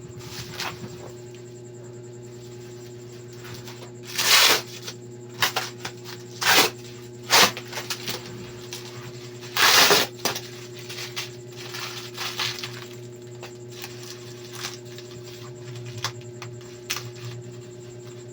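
Packaging being handled while a product is unboxed: irregular scrapes, crackles and knocks, a few of them loud and about a second long, over a steady low hum.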